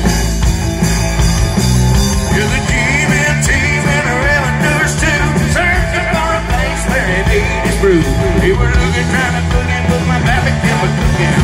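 Live rock band playing through a PA system: guitars, bass and drum kit, heard from the audience.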